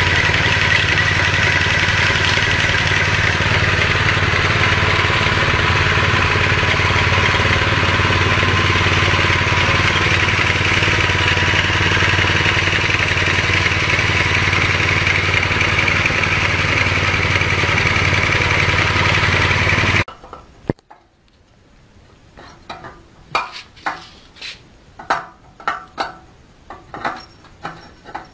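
Small 5.5 hp petrol engine running steadily at a constant speed, driving a horizontal fish-feed pellet machine. It cuts off after about twenty seconds. Irregular metallic clicks and clinks follow as the crank of a hand-turned, cast-iron, grinder-type pellet mill is worked.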